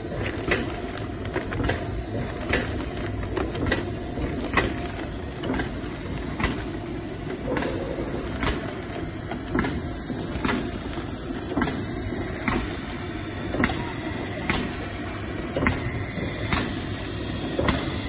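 SPM-80 sauce sachet packaging machine running: a steady mechanical hum with a sharp clack about once a second, one for each packing cycle.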